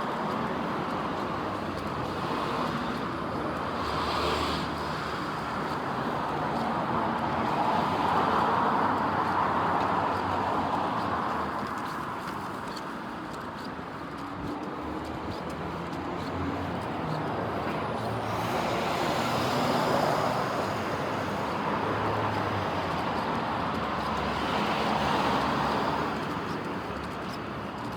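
Road traffic passing, several vehicles swelling and fading in turn over a steady hum of traffic.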